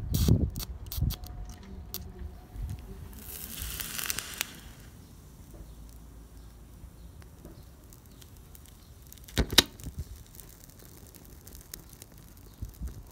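Speaker voice coil from a 6-inch Sony subwoofer burning out under current: a few crackling clicks at first, then a hissing burst lasting about two seconds as the coil starts to smoke, and two sharp pops about nine and a half seconds in.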